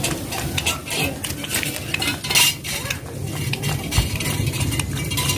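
Puppy lapping milk from a bowl: a quick, irregular run of wet laps and small knocks against the bowl.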